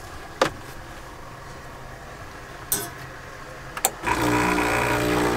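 A few sharp clacks as a portafilter is fitted into an espresso machine's group head, then about four seconds in the machine's pump starts with a sudden steady buzz as it begins pulling a shot.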